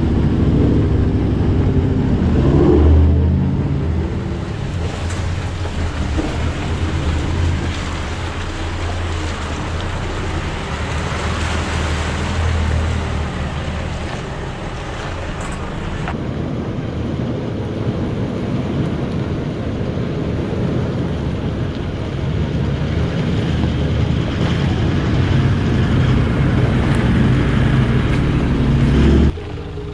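Four-wheel-drive vehicle driving on a dirt track: a steady low engine drone under road and tyre noise.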